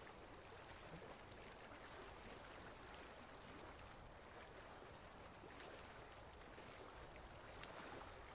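Near silence: a faint, steady hiss, much like distant running water.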